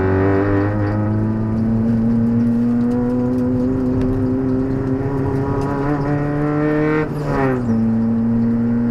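Proton Putra 1800cc race car's four-cylinder engine heard from inside the cabin, pulling hard with its pitch slowly rising. About seven seconds in the revs drop briefly, as at a gear change, then the engine holds a steady lower pitch.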